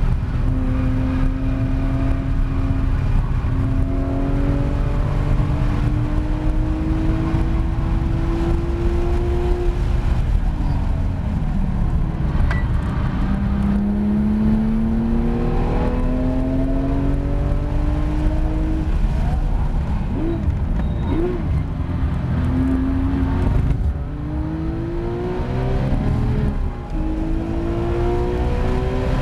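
Porsche 911 GT3 RS's naturally aspirated flat-six engine heard from inside the cabin at racing speed: it climbs in pitch under full throttle with stepped upshifts, falls away about ten seconds in, gives two quick throttle blips around twenty seconds in, then pulls hard again with an upshift near the end.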